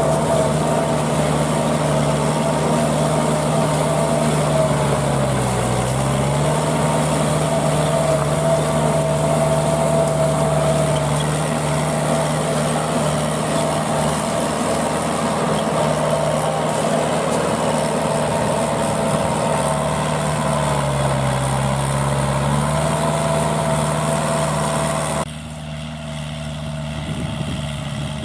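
Kubota L5018VN tractor's 2.4-litre four-cylinder diesel engine running steadily while it drives a rear rotary tiller through dry rice stubble. The engine's pitch sags briefly twice, and near the end the sound drops suddenly to a quieter, more distant level.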